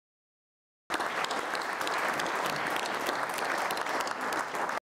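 Audience applauding, many hands clapping together. It cuts in abruptly about a second in and cuts off just as abruptly shortly before the end, as at an edit.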